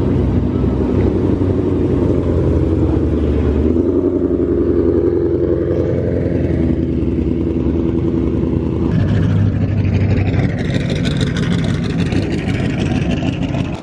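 Shelby GT500's supercharged V8 running loudly at low revs as the car drives slowly away. About ten seconds in, a second V8 Mustang takes over as it passes close by.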